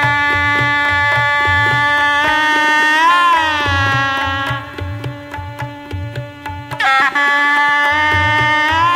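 Instrumental background music: a held, bending melody line over a steady drum beat. The music drops quieter for about two seconds past the middle, then comes back full with a quick slide in pitch.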